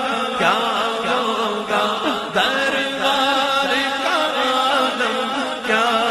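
Male voice singing an Urdu naat in long, wavering melismatic phrases without instruments, over a steady held vocal drone.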